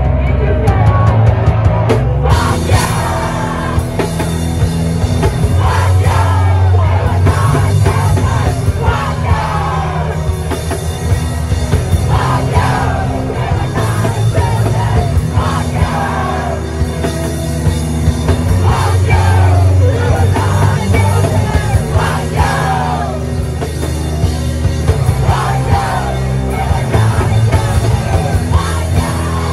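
A loud live punk/hardcore band playing: distorted guitars, bass and pounding drums under shouted vocals. The sound grows brighter about two seconds in.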